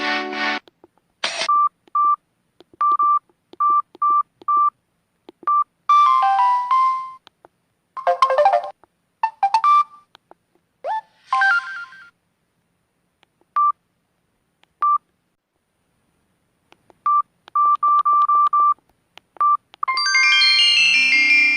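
Samsung SGH-M620 phone sounding a string of short electronic key beeps, single steady tones with gaps of silence between them. A few brief tone snippets come between the beeps, and a chiming melody starts near the end.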